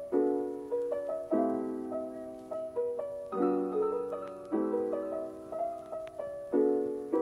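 Soft background piano music: chords struck every second or two, each left to ring and fade.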